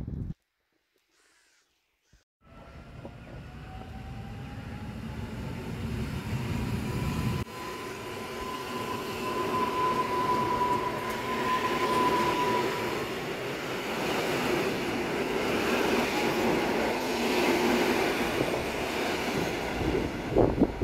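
About two seconds of silence, then a Polish EN57-series electric multiple unit running along the platform. Its wheel and body rumble grows steadily louder, and over it an electric whine rises in pitch and then holds steady for a few seconds.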